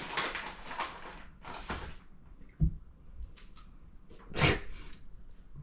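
Knocks and rustling from a dog shifting about inside a hard plastic kennel: a short dull thump about halfway through and a louder knock near the end.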